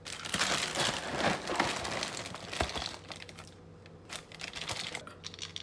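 Plastic cereal-bag liner crinkling as it is handled and opened, then quieter rustling and a few light clicks as cereal puffs are scooped into a measuring cup.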